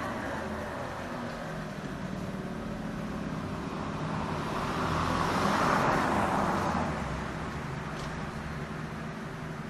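City street traffic: a steady hum of cars and engines, with one vehicle passing close, growing louder to a peak about six seconds in and then fading back into the general traffic.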